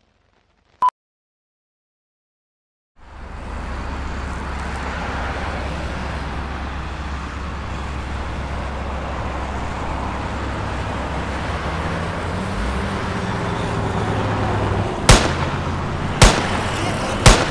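A single short high beep of a film-leader countdown, then silence. About three seconds in, street traffic ambience with a car engine idling comes in and runs on. Near the end, three gunshots about a second apart, the loudest sounds here.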